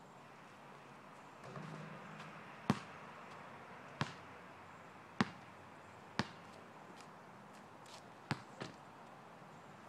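Basketball bouncing on an asphalt court: sharp single thumps about a second apart, then two in quick succession near the end.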